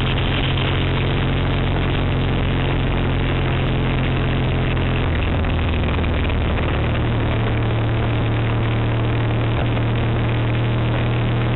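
Triumph Bonneville parallel-twin motorcycle engine running steadily under way, with wind and road noise over the microphone. About five seconds in the engine note drops, then rises again near seven seconds.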